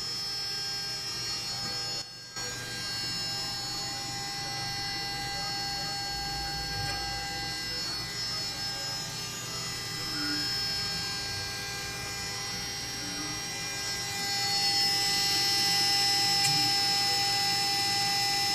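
CNC router running with a steady, multi-toned whine. It drops out briefly about two seconds in and grows louder for the last few seconds.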